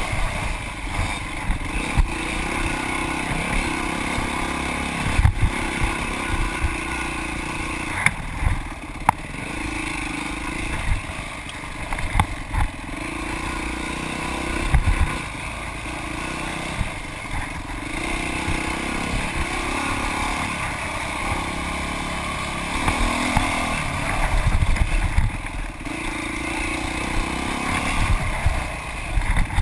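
Dirt bike engine running hard and revving up and down as it is ridden on an off-road trail. Repeated short thumps and clatter are heard as the bike bounces over bumps.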